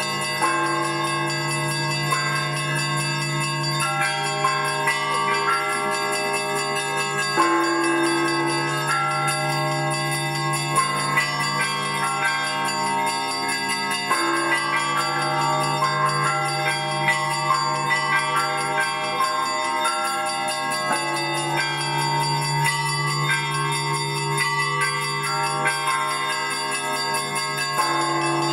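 Russian Orthodox church bell ringing played by hand on a set of bells. Quick patterns of strokes on the small and middle bells ring continuously over the sustained hum of a deep bell.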